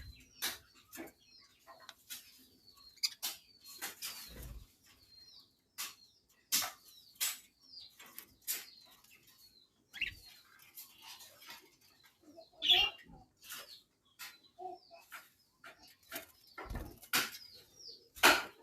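Budgerigar chirping and chattering: an irregular run of short, quick chirps mixed with sharp clicks.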